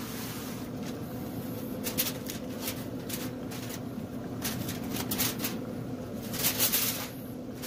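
Aluminium foil crinkling and crackling in bursts as it is handled and peeled back from a foil pan, over the steady hum of the pellet grill's fan running.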